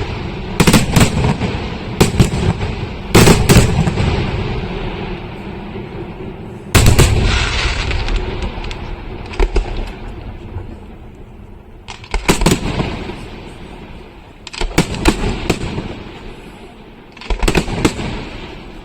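Fireworks exploding in a pyrotechnic display: sharp loud bangs, singly and in quick clusters every second or few, each followed by a rolling echo that dies away. The heaviest bang comes about a third of the way in.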